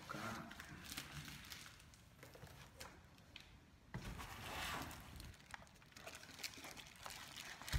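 Scissors cutting through the packing tape on a cardboard box, then a bubble-wrapped parcel lifted out and handled, its plastic wrap crinkling and rustling with scattered clicks. The longest rustle comes about halfway through.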